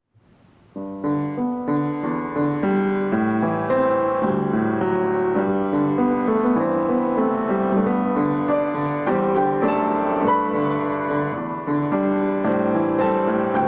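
Solo piano music starts about a second in and plays on in steady chords and melody.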